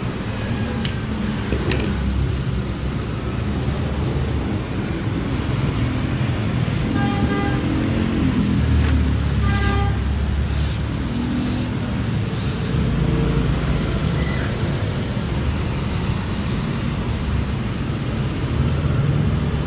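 Steady road traffic rumble with a vehicle horn tooting twice around the middle, and a few sharp clicks.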